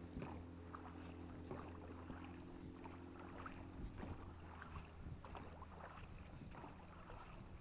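Rowboat being rowed: faint, irregular splashes of the oars in the water and knocks from the oars, over a steady low hum.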